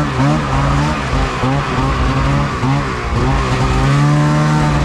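A motor vehicle's engine running and revving, its pitch rising and falling repeatedly.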